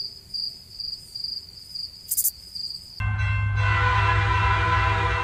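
Crickets chirping in a steady pulse about twice a second. About three seconds in, a loud train horn sounds abruptly over a deep rumble and holds to the end.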